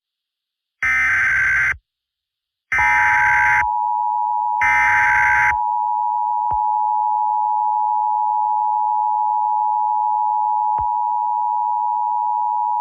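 Emergency Alert System tones: three short, harsh data bursts (the SAME header) about a second apart, then the steady two-tone EAS attention signal that begins during the second burst and holds without change. Two faint clicks occur during the tone.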